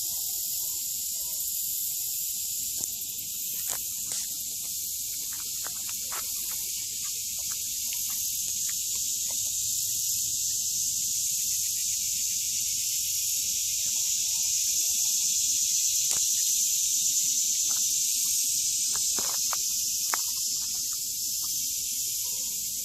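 Steady high-pitched hiss of outdoor ambience, swelling a little in the middle, with scattered faint clicks and snaps.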